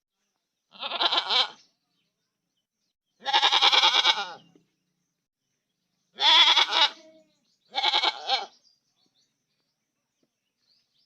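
Goat bleating: four separate quavering bleats of about a second each, with silence between them.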